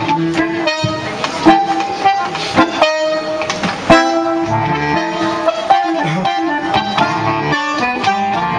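Bandoneon and harmonica playing the instrumental opening of a tango: sustained reedy notes and chords with sharp accented attacks.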